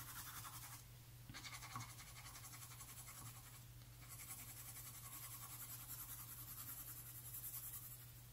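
Derwent Lightfast coloured pencil shading on paper: faint, quick back-and-forth scratching strokes, pausing briefly twice, about a second and four seconds in.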